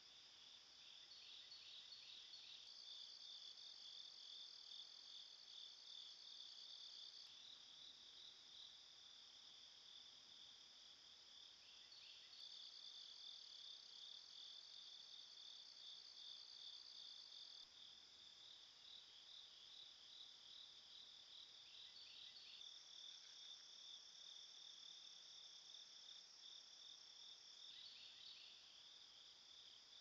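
Faint chorus of insects calling: a steady pulsing trill, joined three times by a second, higher call that lasts about five seconds each time.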